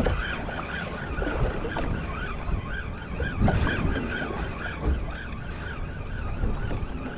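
Spinning fishing reel being cranked steadily to retrieve a small hooked fish: a regular whirring that rises and falls about three times a second. Wind buffets the microphone underneath.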